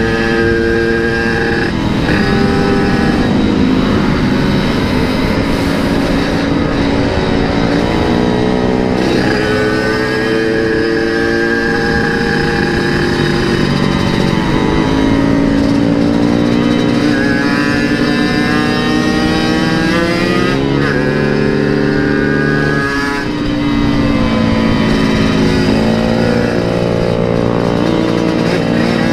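Yamaha RX-King 135 two-stroke single-cylinder motorcycle engine running hard under the rider, its revs held, climbing and then dropping sharply several times as it is shifted through the gears.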